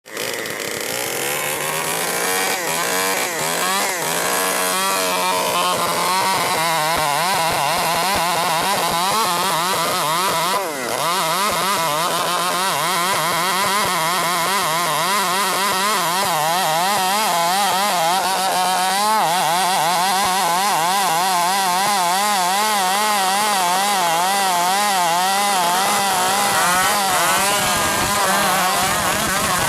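A 105cc chainsaw running at high speed while sawing through timber. The engine's pitch wavers up and down continuously as the chain loads and frees in the cut, with one brief dip about eleven seconds in.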